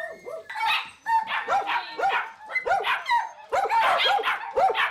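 Dogs barking over and over in quick, short barks, about two or three a second.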